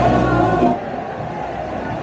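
Water splashing into a pool with music playing, cut off abruptly under a second in, leaving a quieter steady rushing noise.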